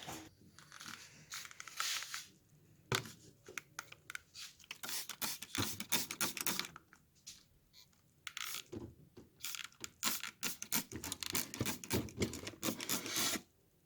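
Rapid, irregular scraping and scrubbing strokes against a window air conditioner's dirt-caked coil, in two runs with a short pause between, stopping shortly before the end.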